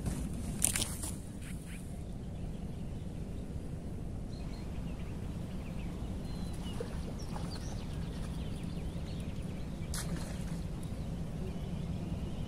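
Small birds chirping faintly over a steady low rumble of outdoor noise. The camera is handled with a sharp knock about a second in, and there is a single click near the end.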